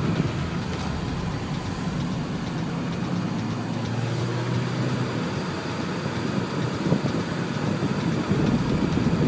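Steady motor-vehicle running noise, an engine and road rumble, with a low hum about four seconds in.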